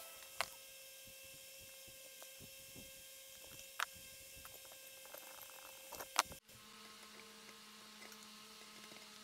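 Faint workshop room hum with a handful of sharp, isolated clicks from parts and tools being handled during valve reassembly on a cylinder head. About six and a half seconds in, the background hum changes abruptly to a lower steady tone.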